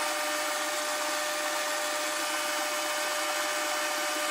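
Metal lathe at about 200 RPM taking a dry cut on a stainless steel bar with a carbide insert, no cutting oil: a steady hiss with a constant whine.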